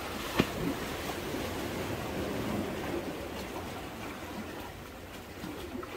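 Sea water washing and lapping among the concrete tetrapods of a breakwater, a steady wash, with one sharp knock about half a second in.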